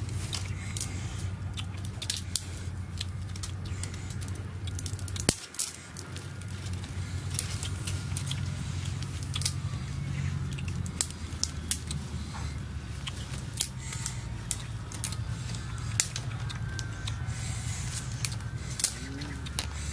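Thin wooden sticks being cut with a knife and handled, a long irregular run of sharp clicks and snaps over a steady low hum.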